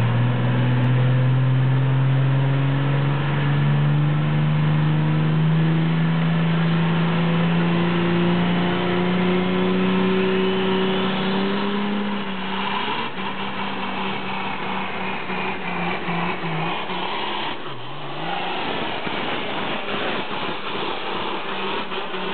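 Cummins diesel engine of a modified pulling truck under full load dragging a sled, its pitch climbing steadily for about twelve seconds. The sound then turns rougher and breaks up, with a high whine over it, dips briefly about three-quarters of the way through and picks up again as the truck comes past.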